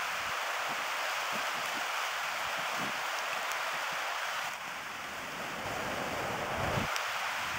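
Creek water rushing over shallow rapids and around rocks, a steady rush of moving water.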